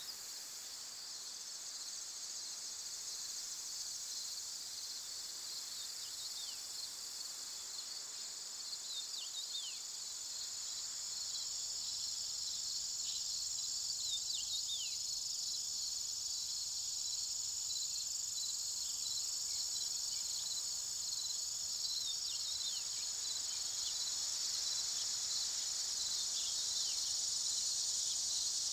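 Steady, high-pitched chorus of field insects such as crickets, slowly getting louder, with short falling chirps scattered through it.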